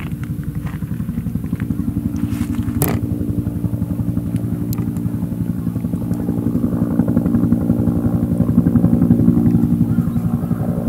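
Helicopter flying past: a steady drone with fast, even rotor pulsing, growing louder to a peak about eight to nine seconds in, then easing slightly.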